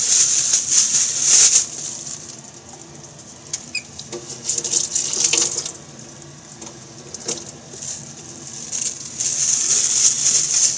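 Kitchen tap water running into the sink in several spurts, turned on and off, with the water hissing and splashing.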